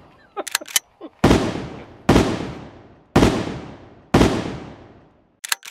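Four shotgun blasts about a second apart, each ringing off in a long echo, with a few short sharp clicks about half a second in and again near the end.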